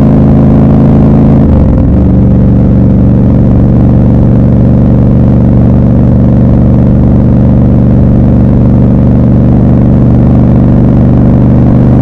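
Triumph Scrambler 1200 XC's 1200 cc parallel-twin engine running under way, heard from the rider's seat. The engine note shifts briefly about a second and a half in, then holds steady at a slightly lower pitch.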